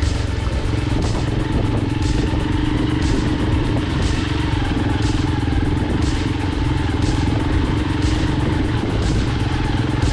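Electronic background music with a steady beat, a sharp accent about once a second, over a motorcycle engine running steadily.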